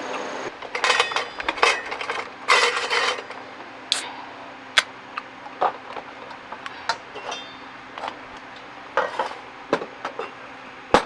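Metal cooking utensils clinking and scraping against a pot or pan: a few short scrapes in the first three seconds, then scattered single clinks.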